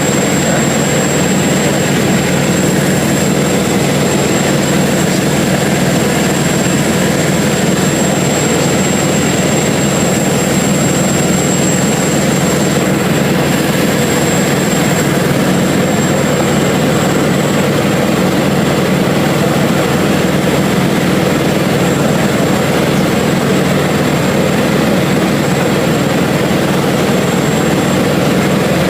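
Cessna 177RG Cardinal's four-cylinder Lycoming IO-360 piston engine and propeller droning steadily in flight, heard from inside the cabin, with a thin steady high whine over it.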